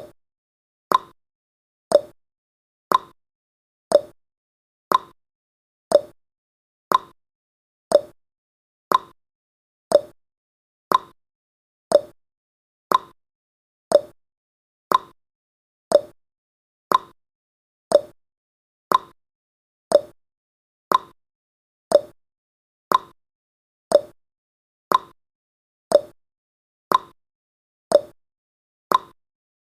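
Countdown timer's ticking sound effect: one short, sharp tick every second, evenly spaced.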